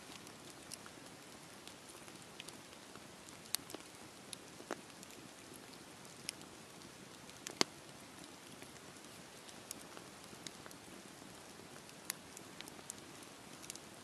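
Wood campfire burning: a steady hiss of flames with sharp, irregular crackles and pops from the burning logs, the loudest pops about three and a half and seven and a half seconds in.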